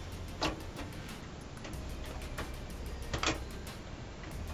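Two light knocks, about half a second and three and a quarter seconds in, as a computer power supply unit is handled and set into a PC case, over a steady low hum.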